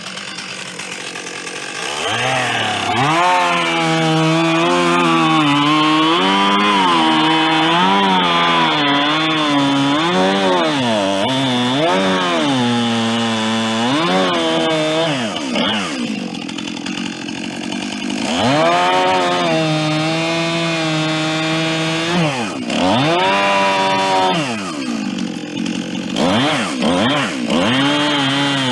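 Two-stroke chainsaw running and cutting into wood, its engine pitch rising and falling constantly under load. It drops back to a lower note for a few seconds about halfway through, then revs up again in several short bursts near the end.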